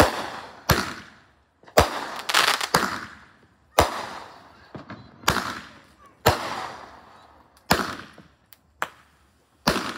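Fireworks going off in quick succession: about ten sharp bangs, roughly one a second, each trailing off in a fading crackle and echo.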